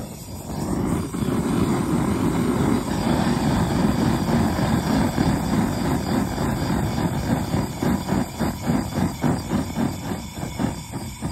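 Handheld gas torch flame running steadily, heating heat-shrink tubing over a pump-wire splice. In the last few seconds the noise pulses quickly as the flame is waved back and forth.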